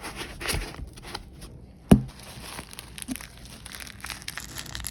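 Packaging being handled and crinkled while battery cells are unboxed, an uneven rustling with small clicks, and one sharp knock about two seconds in.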